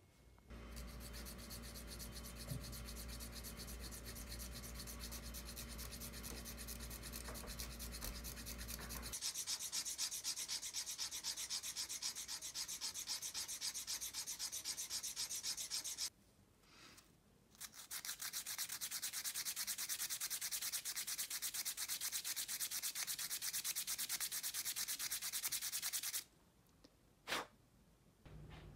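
A hand file rasping against a small stone as it is carved by hand: fast, steady scraping strokes. The strokes pause briefly about two-thirds of the way through, then stop near the end, followed by a single click.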